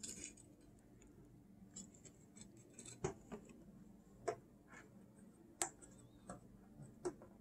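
Faint, scattered clicks and taps of a small metal turntable bracket and a cotton swab being handled on a desk while old grease is swabbed off with isopropyl alcohol, with a few sharper clicks about a second apart.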